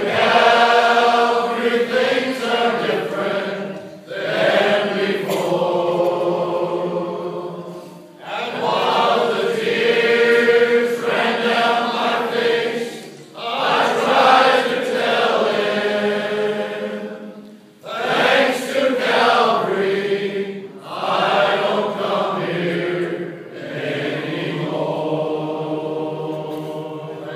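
Men's choir singing a slow gospel hymn together, in phrases a few seconds long with short breaths between them, the last phrase softer.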